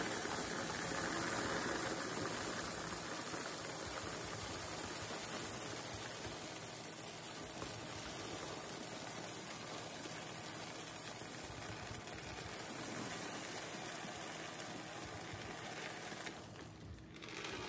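Frozen elderberries pouring from a plastic bowl into a plastic zip-top bag: a continuous rushing stream of small hard berries that slowly grows quieter and stops near the end.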